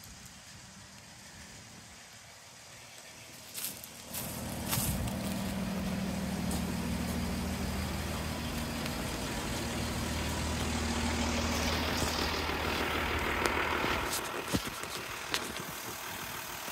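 The camper van's Mercedes-Benz Sprinter diesel engine starting about four seconds in, after a couple of clicks, and running steadily at an even pitch, then dropping away about two seconds before the end, with a few sharp clicks.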